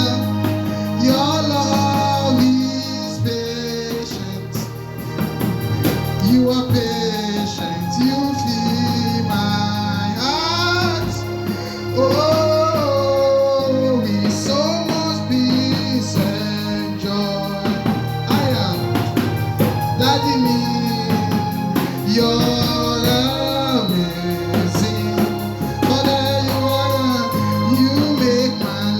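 A worship song with sung vocals over a continuous instrumental backing.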